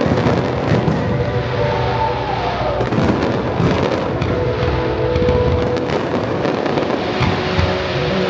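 Fireworks display: repeated bursts and crackles over loud music played in sync with the show.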